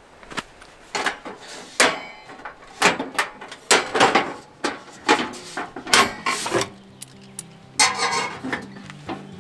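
Metal clattering and clicks of a folding camping gas stove being folded up and its case shut: a dozen or so sharp knocks spread over several seconds. Soft background music comes in near the end.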